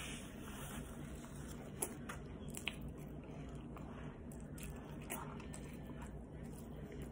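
A person eating fries, chewing close to the microphone, with two sharp clicks about two and two-and-a-half seconds in, over a steady low hum.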